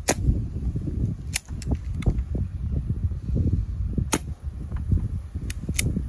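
Stoeger XM-1 pre-charged pneumatic air rifle fired twice, about four seconds apart, each shot a sharp crack followed by the clicks of the bolt being cycled to chamber the next pellet from the magazine.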